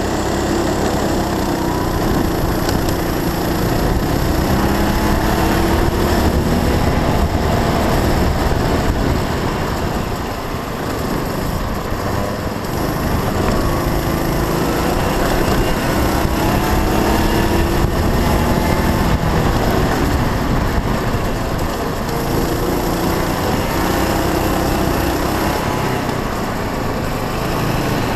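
Onboard sound of a Honda Cadet kart's single-cylinder four-stroke engine at racing speed, its note rising and falling repeatedly as the revs climb on the straights and drop into the corners.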